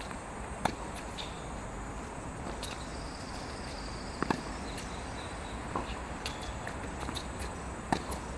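Sharp single knocks of a tennis ball on racket strings and on the hard court, a few seconds apart, with a quick double knock in the middle and the loudest knock near the end, over a steady outdoor hiss.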